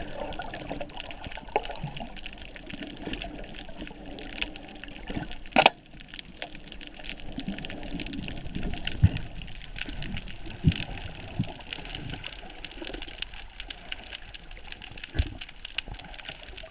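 Underwater sound picked up through an action camera's housing: a steady wash of water noise full of fine crackling clicks, with scattered low thumps and one sharp loud knock a little over five seconds in.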